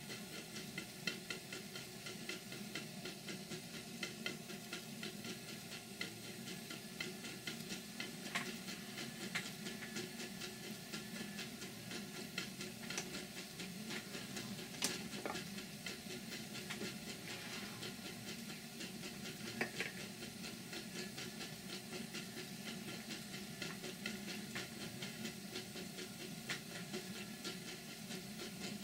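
Stuart Twin Victoria twin-cylinder model steam engine running steadily on live steam: a fast, even beat of ticks over a continuous hiss of steam, with a few sharper clicks along the way.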